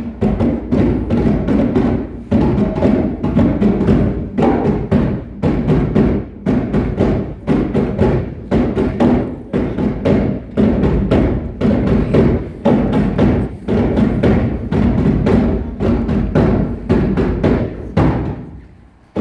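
Three djembes played together by hand: a dense, fast stream of strikes that dies down to a brief lull just before the end.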